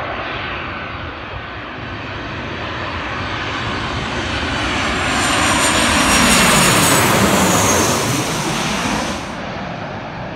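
Boeing 737 jet airliner on final approach, its two turbofan engines growing louder as it passes low overhead, with a high whine and a pitch that falls as it goes by. The sound drops off suddenly about nine seconds in.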